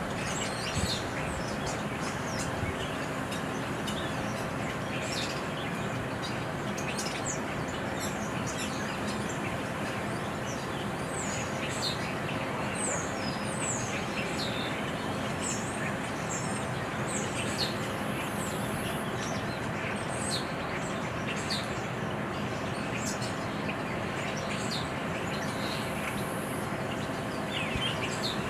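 Small birds chirping in short, scattered calls, over a steady background hum.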